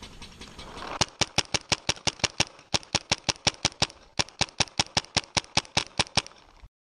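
Paintball marker firing rapid strings of sharp pops, about eight shots a second, in three bursts with brief pauses about a second and a half and three seconds in.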